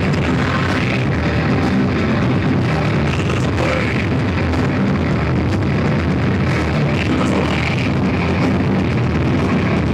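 Live rock band playing loud, distorted guitars over a full drum kit, a dense, steady wall of sound recorded with poor, overloaded quality.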